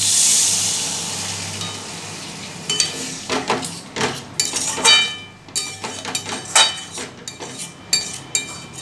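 Water poured into a hot metal kadai of fried masala, sizzling as it hits and fading over about two seconds. From about three seconds in, a spatula stirs the curry, scraping and clinking against the pan over and over.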